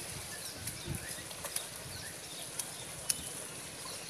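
Outdoor ambience at a fishing pond: a steady high hiss with scattered short, high chirps and a few sharp clicks, the loudest a little after three seconds in.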